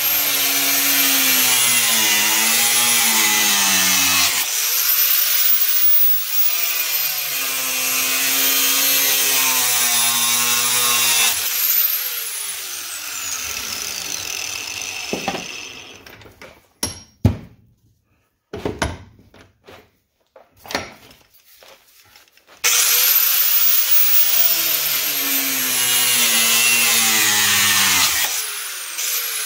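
Angle grinder with a cutoff wheel cutting notches into 3-inch PVC pipe clamped in a vise, its pitch wavering as the wheel bites. About twelve seconds in it is switched off and winds down, falling in pitch. A few sharp knocks and clicks follow as the pipe is handled, then the grinder starts again suddenly and cuts until the end.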